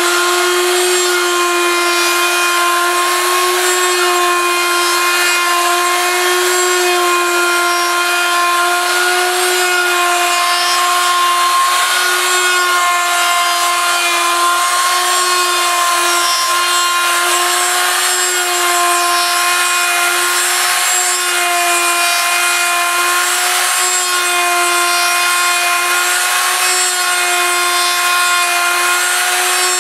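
Router motor on a homemade copy milling machine running steadily with a high whine, its bit hissing as it shaves a wooden lure blank.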